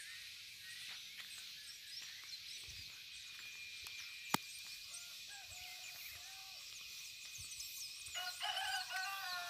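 Birds chirping, with a rooster crowing near the end and a single sharp click about four seconds in.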